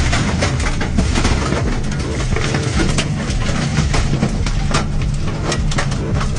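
Violent storm wind, apparently a tornado, rushing loudly and steadily around a vehicle, with many sharp knocks of debris striking it.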